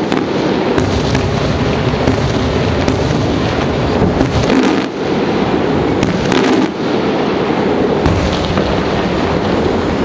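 Aerial fireworks shells bursting, with repeated sharp cracks over a dense continuous rumble of reports.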